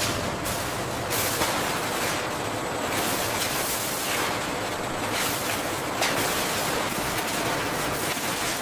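Steady noise of automated packaging machinery and conveyors, with repeated short surges of hiss.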